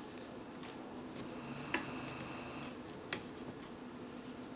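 Two sharp clicks about a second and a half apart from the vintage Atlas sewing machine as its presser foot area is worked and fabric is set under it, over a low steady hum.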